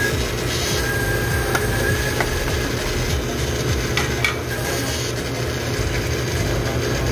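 Carbonator pump motor of a postmix soda dispenser running steadily as it fills the carbonator tank with water, with a few light clicks.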